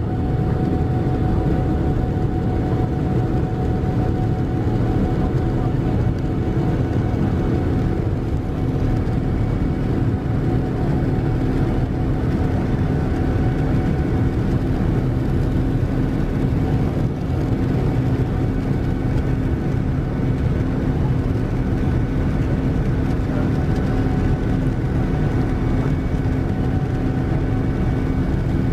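Rolls-Royce Trent 1000 turbofan of a Boeing 787-9 at climb power just after takeoff, heard inside the cabin. It makes a steady, even rush of engine and air noise with several constant whining tones over it.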